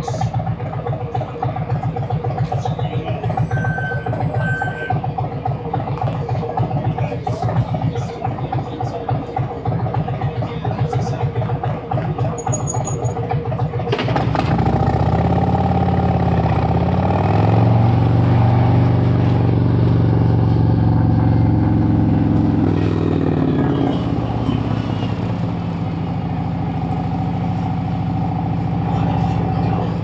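2017 Harley-Davidson Road Glide Special's Milwaukee-Eight 107 V-twin idling with a fast, lumpy low beat. About fourteen seconds in the bike pulls away: the engine revs up and gets louder, then runs steadily at cruising speed.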